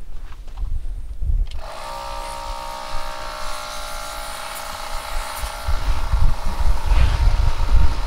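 Air compressor starts about a second and a half in and runs with a steady hum and hiss. Low rumbling noise joins in over the last two seconds.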